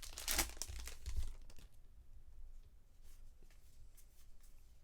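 Crinkling and tearing of a foil trading-card pack wrapper as packs are opened and cards handled, loudest in the first second and a half, then fainter rustling.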